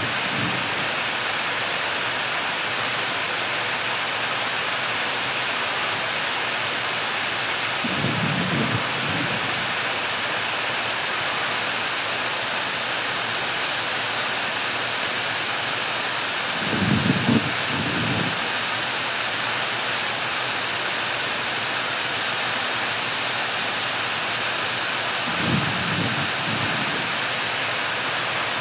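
Waterfall cascading down a steep rock face: a steady rushing hiss, broken three times by a brief low rumble, about every eight or nine seconds.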